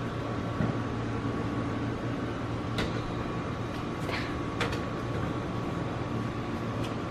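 A steady machine hum, a low drone with a thin high whine over it, with a few faint clicks about three and four seconds in.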